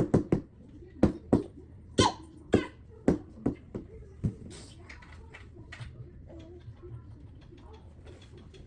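Sharp knocks: a fast run at the start, then single knocks about half a second apart that stop about four seconds in, followed by faint rustling.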